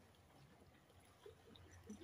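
Near silence: faint steady low background noise, with a couple of faint brief sounds in the second half.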